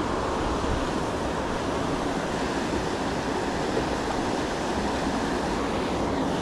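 Steady rush of fast, turbulent river water pouring over and below a low concrete dam.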